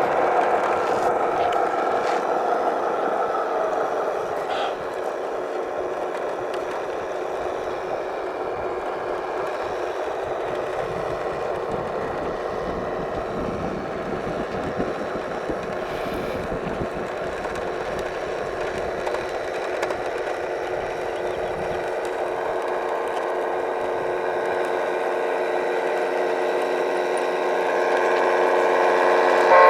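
Radio-controlled model trucks and construction machines running: a steady mechanical whine of electric motors and gearing with a few held tones, a little louder at the start and swelling again near the end.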